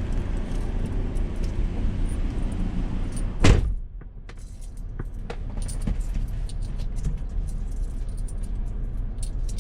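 Vehicle engine idling, heard from inside the cab. About three and a half seconds in a car door slams shut, after which the idle is quieter, with light scattered clicks.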